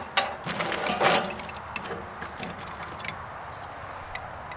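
Fatwood kindling sticks knocking and rattling together as they are handled, a cluster of sharp wooden knocks in the first second, then only a few faint clicks.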